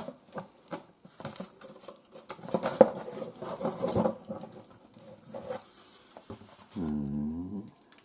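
Cardboard packaging rustling and scraping with small irregular knocks as the microwave's metal turntable roller ring is worked loose from the cardboard insert. A short low hum sounds about seven seconds in.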